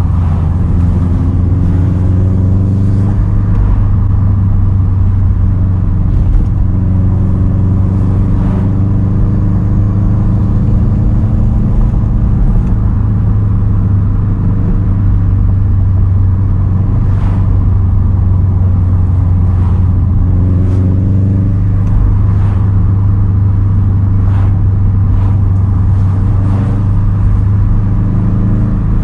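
2010 Subaru WRX STI's turbocharged 2.5-litre flat-four running through a Tomei titanium single straight-pipe exhaust, cruising under light load with a steady deep drone. The pitch rises and falls gently with the throttle, and a few brief faint clicks come through.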